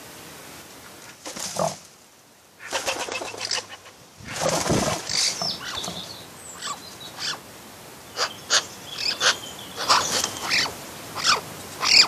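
Wood pigeons at a bird bath: a few brief bursts of wing flapping and scuffling, then many short clicks and knocks, with a few short high bird chirps.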